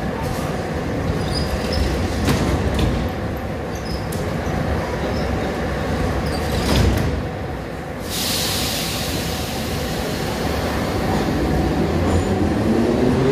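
Ezh-3 metro train standing at the platform with a steady low rumble and a few knocks. About eight seconds in, a loud hiss sets in. Near the end the traction motors start a rising whine as the train pulls away.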